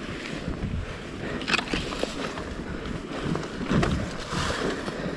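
Wind rumbling on the microphone and dry leaves and twigs crackling under a slowly rolling dirt bike, with a few sharp cracks, the loudest about a second and a half in.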